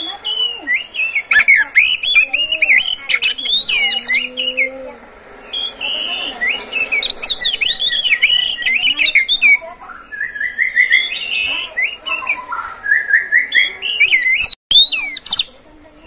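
Male Oriental magpie-robin (kacer) singing: a rapid, varied string of whistles and chirps, with two quick runs of short notes climbing in pitch in the second half.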